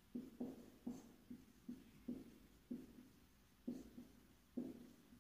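Marker pen writing on a whiteboard: a quiet run of short, irregular strokes and taps, roughly two a second, as letters are drawn.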